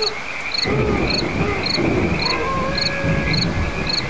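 Night-time nature sound effects: crickets chirping in an even rhythm of about two chirps a second over a steady insect trill, joined about a second in by a low rumble.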